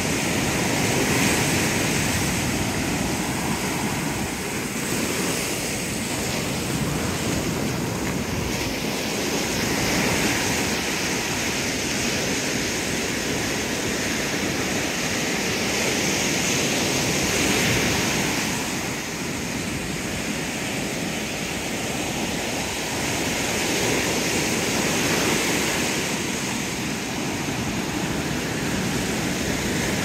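Ocean surf breaking on a sandy beach: a steady rush of waves that swells and eases every several seconds.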